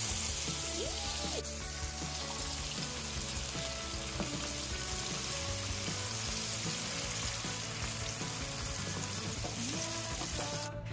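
Breaded portobello mushroom pieces sizzling steadily as they fry in oil in a pan.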